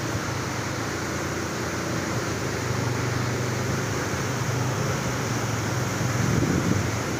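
A motorcycle engine running steadily at low speed, a constant low hum over an even hiss.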